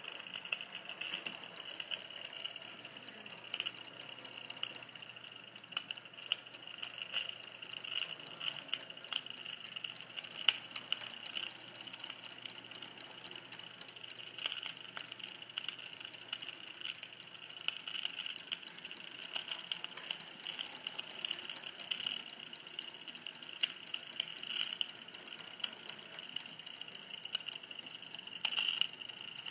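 Small model train locomotive running along its track: a steady high motor-and-gear whine with irregular clicking and rattling of wheels over the rails.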